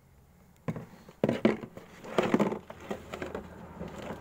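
Handling noise from a plastic fertilizer applicator's hopper: a few sharp knocks a little under a second in and again about two seconds in, with rustling between, as a plastic pipe and bagged parts are moved about inside it.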